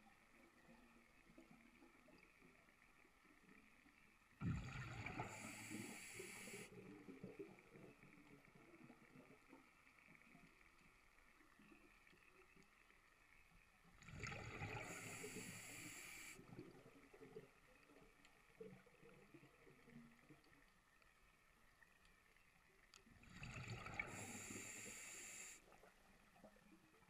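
A scuba diver's exhaled breath bubbling out of the regulator, heard underwater through the camera's waterproof housing: three rushing bursts of about two seconds each, roughly nine seconds apart, with faint near-silence between them.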